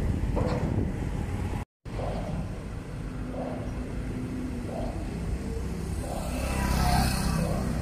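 Road traffic with a steady low rumble; near the end a vehicle passes close by, swelling and then fading. The sound cuts out briefly just under two seconds in.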